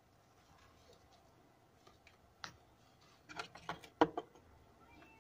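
A few light clicks and taps from an opened mobile phone's plastic frame being handled: a single tick about two and a half seconds in, then a quick cluster of clicks about three and a half to four seconds in, the last one the loudest, over quiet room tone.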